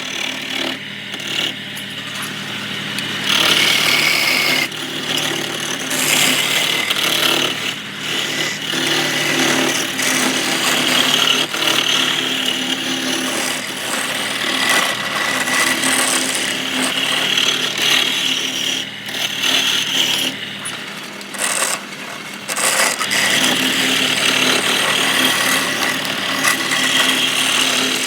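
Wood lathe running with a steady motor hum while a turning tool cuts the spinning wood, the rough cutting noise coming in spells of a few seconds and easing off between passes.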